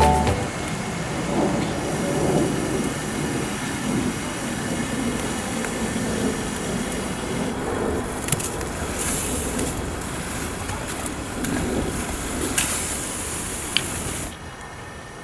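Gas stove burner flame burning steadily with a low rushing rumble as whole tomatoes char on the grate, broken by a few short sizzling hisses and a sharp pop from the blistering tomato skins. The sound drops away near the end.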